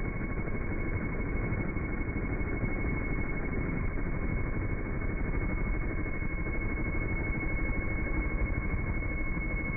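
Steady low noise with two faint, unchanging high tones above it, from a helical ultrasonic resonator running in water, heard four times slowed down.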